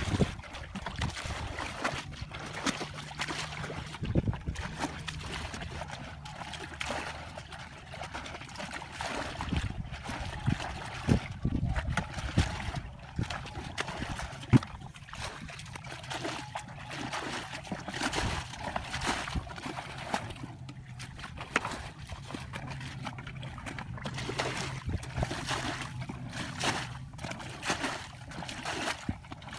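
Muddy water sloshing and splashing as plastic buckets are scooped into a shallow pool and emptied over a low earth dam, again and again in an uneven rhythm: the pool is being bailed out by hand to drain it.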